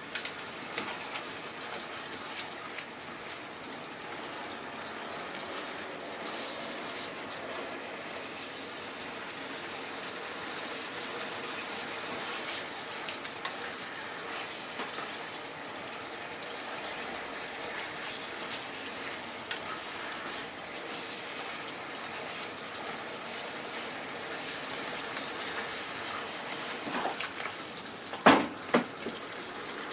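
Chicken and bamboo shoots sizzling and bubbling in a saucy frying pan over a gas flame, a steady sputtering hiss. Chopsticks knock sharply against the pan once just after the start and a few times near the end while the food is stirred.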